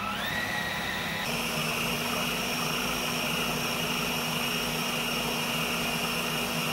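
Food processor motor running, blending firm pressed tofu. Its whine rises in pitch over about the first second as it spins up, then holds steady.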